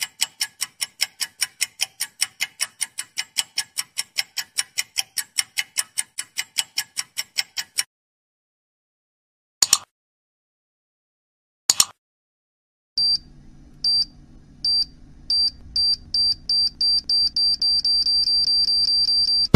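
A run of stock sound effects. Fast, even ticking at about five ticks a second stops near the eighth second. Two single clicks follow. Then an electronic beep repeats faster and faster over a low hum, like a countdown timer.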